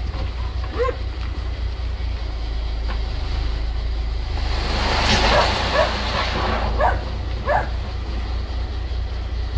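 Truck engine running with a steady low rumble. About halfway through, a rushing noise swells up and fades, and a dog gives a few short barks.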